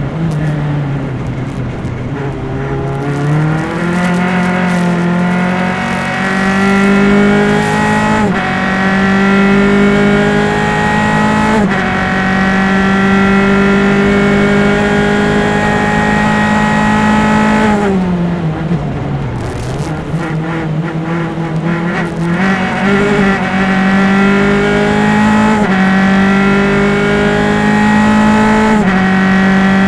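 Single-seater race car engine at racing speed, heard on board. It comes off the throttle and drops in pitch at the start, then climbs through several upshifts and holds a steady note for a few seconds. Around the middle it drops sharply again under braking and downshifting, with crackles, and then climbs back through the gears.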